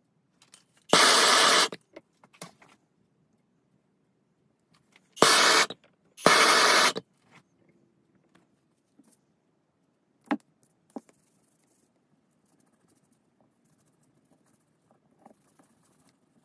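Three short, loud bursts of hissing: one about a second in, then two close together around five to seven seconds in. A couple of light metallic clicks follow.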